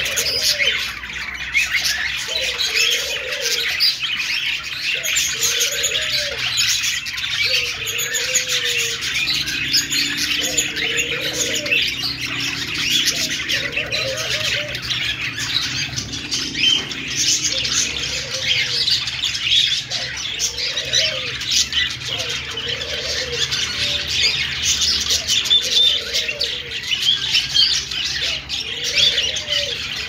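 A flock of budgerigars chattering and warbling together without pause, a dense mass of overlapping high chirps and squawks. Underneath, a lower call repeats about every second and a half.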